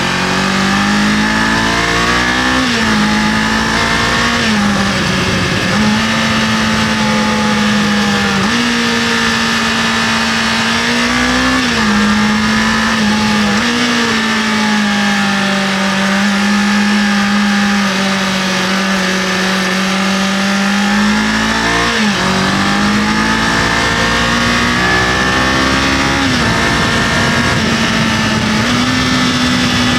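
Kawasaki KLE500 parallel-twin engine running at cruising revs under way, its pitch stepping up and down several times with throttle and gear changes, with a sharp dip and rise a little past two-thirds of the way through, over a steady rush of wind and road noise.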